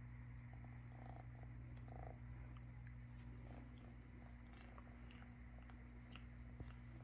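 A cat purring faintly and steadily as it is stroked, with a few soft small clicks.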